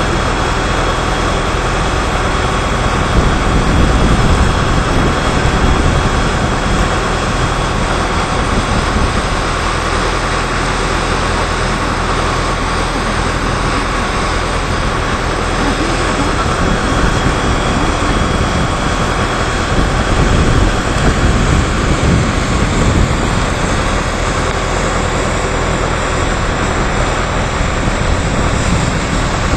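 A fire hose nozzle throwing a high-pressure jet of water, a loud steady rushing spray with a steady machine hum beneath it, swelling slightly now and then.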